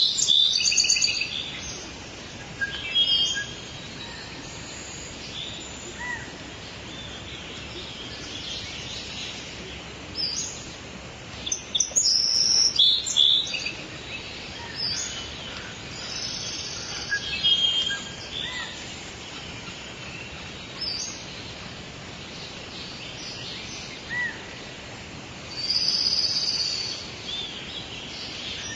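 Birds chirping and singing in short, high phrases every few seconds over a steady background hiss.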